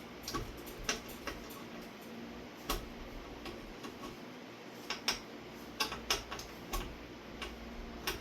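Light, irregularly spaced clicks and taps, about a dozen, over a steady low hum: small parts and hardware being handled while a ceiling fan is being taken down.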